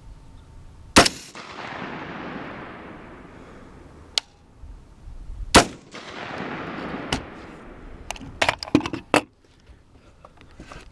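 Two rifle shots about four and a half seconds apart, each rolling away in a long echo across the range, followed near the end by a quick run of sharp clicks and knocks.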